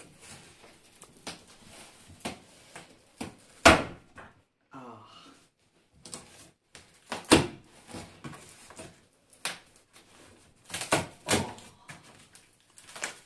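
Large cardboard shipping box being handled and opened by hand: several sharp knocks and thuds on the cardboard, the loudest about four seconds in, with rustling and scraping of the flaps between them.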